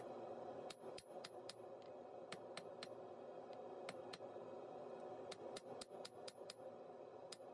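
Hand hammer striking red-hot steel on an anvil in quick runs of blows, about four a second, with a pause of about two seconds in the middle. A steady hum runs underneath.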